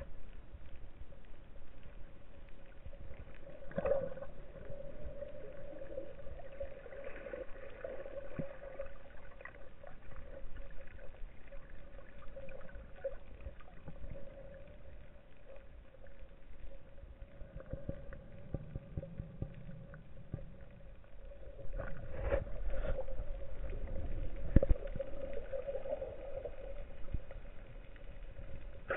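Underwater ambience heard through a camera housing: a steady hum, with low rumbling and scattered clicks, and one sharp knock near the end.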